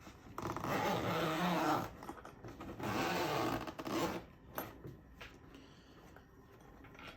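Zipper on a padded pistol case being pulled open in two long rasping strokes, followed by a few light clicks and handling noise as the case is opened.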